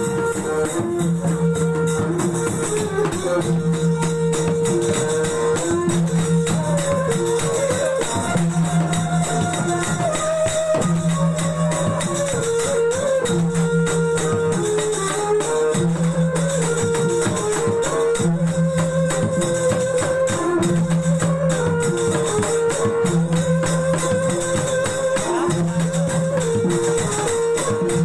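Sasak cilokak ensemble music: a gliding violin melody over a gambus lute, with a low figure repeating about every two seconds and steady jingling percussion.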